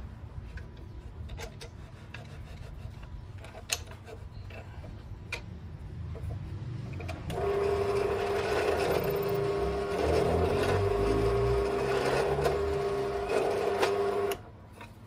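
Scattered clicks and light knocks of handling, then a small electric motor starts about halfway through, runs at one steady pitch for about seven seconds and cuts off suddenly.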